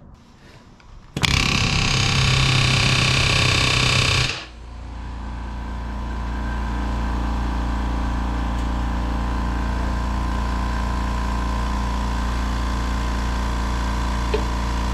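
A pneumatic rivet gun rattles loudly for about three seconds, setting aluminium aircraft rivets in the spar. Then a steady motor hum with a low drone takes over, growing louder over a couple of seconds and holding, typical of the shop air compressor running to refill its tank.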